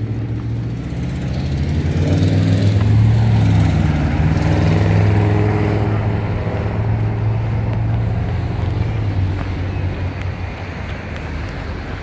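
Road traffic: a vehicle engine running with a low hum that swells a couple of seconds in, holds, then slowly fades.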